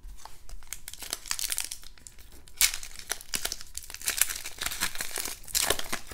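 Foil-lined paper trading-card pack wrapper crinkling and crackling as it is handled and torn open by hand, with louder ripping bursts about two and a half seconds in and again near the end.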